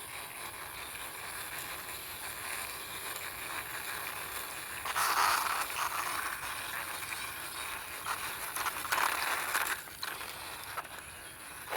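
Toy bulldozer pushed along by hand, its plastic wheels rolling and scraping over the surface, with louder stretches about five seconds in and again about nine seconds in.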